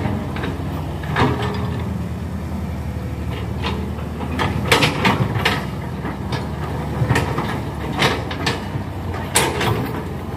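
Hydraulic excavators at work, their diesel engines running steadily under repeated sharp clanks and scrapes as the buckets dig into hard red gravel and clay.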